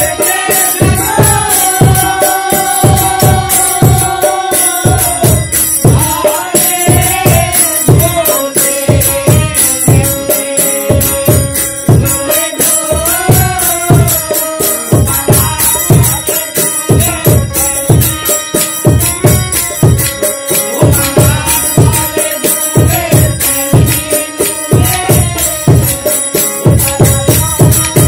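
Bengali devotional kirtan: a voice singing a held, gliding melody over harmonium, with regular strokes on a khol barrel drum and steady metallic jingling in jhumur taal.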